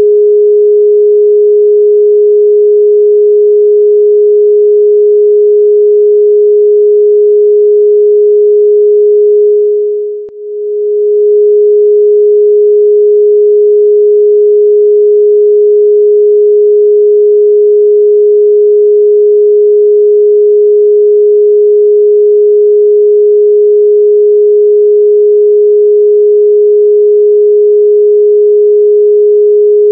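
A single steady electronic sine-wave tone, a meditation tone, held at one mid-low pitch with no overtones. It fades briefly out and back in about ten seconds in.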